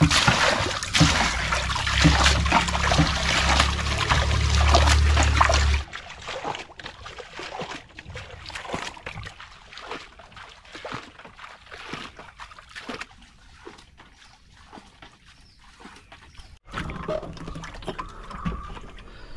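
Rainwater being bailed by hand out of a wooden canoe with a plastic scoop: repeated splashing and pouring, loud for the first several seconds, then dropping off abruptly to quieter, scattered splashes and rustling.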